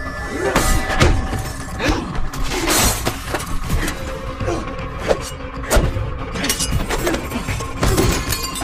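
Film fight-scene sound effects: a fast run of punch and body-impact hits with breaking and shattering among them, over a tense music score.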